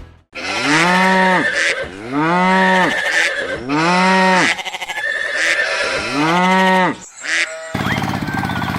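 A farm animal's call, moo-like, repeated four times; each call is about a second long and its pitch rises and then falls. About a second before the end, a steady machine hum starts.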